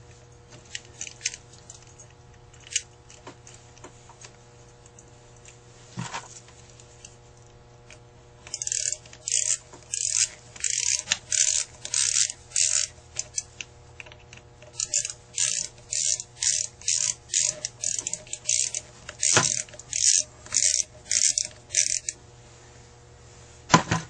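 A small ratchet driving the choke housing screws on a Carter AFB carburetor: a few light clicks of parts being handled, then two long runs of ratcheting strokes, about two a second, with a short pause between them.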